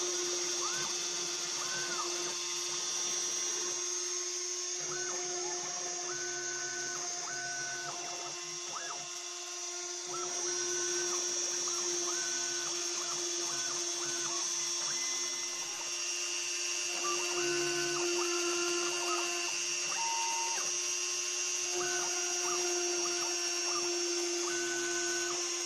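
Homemade CNC router engraving lettering into a plexiglass sheet. The spindle runs with a steady whine, while the stepper motors whine in short pitch sweeps and held notes that change every second or so as the axes move.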